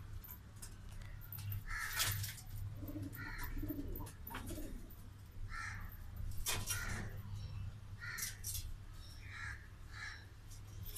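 Birds calling around a pigeon loft: short, harsh calls repeated every second or so, with some lower cooing a few seconds in. A few sharp knocks cut through, the loudest about two seconds in and again past the middle, over a steady low hum.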